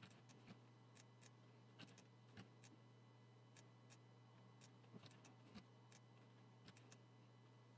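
Faint, irregular clicks of a computer mouse and keyboard as points are set with a drawing program's line tool, over a low steady hum.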